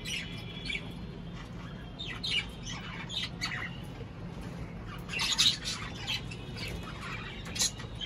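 Cockatiels squawking and chirping in short, scattered calls, the loudest cluster about five seconds in.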